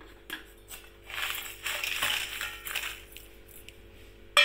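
Dry-roasted red chillies tipped onto a steel plate of roasted seeds, a crisp rustling clatter lasting about two seconds. Near the end comes a single sharp metallic clang with brief ringing, over a low steady hum.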